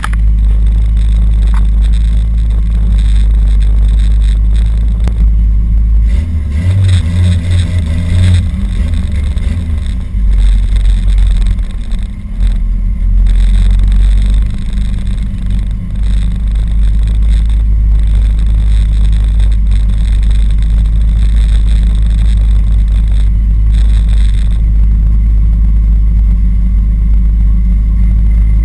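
Loud car engine noise over a constant deep rumble. Around seven to ten seconds in, the engine note shifts up and down as an engine revs.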